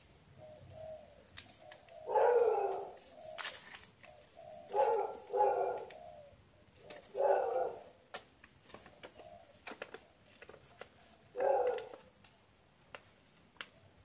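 A dove or pigeon cooing in the background: one call about two seconds in, a quick pair around five seconds, one past seven seconds and another near the end. Between the calls come soft clicks and rustles of a large sheet of origami paper being folded and creased by hand.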